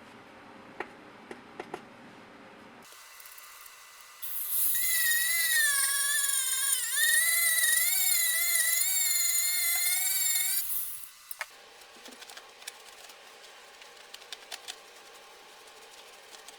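A small high-speed power tool runs for about six seconds, its high whine wavering in pitch as it works. Faint clicks and ticks come before and after it.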